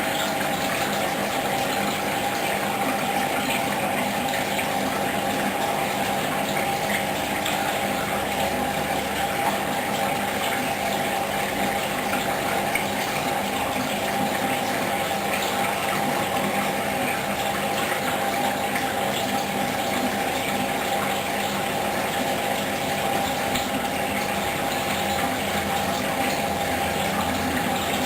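A Hoover Dynamic washing machine on its duvet cycle's main wash, with water gushing steadily inside the machine over a constant mechanical hum.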